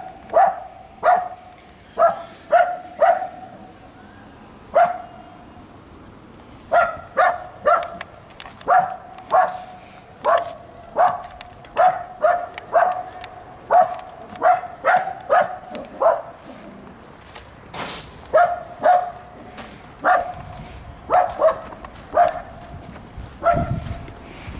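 A dog barking repeatedly, one to two short barks a second, with a pause of a couple of seconds after the first few. A low rumble comes in near the end.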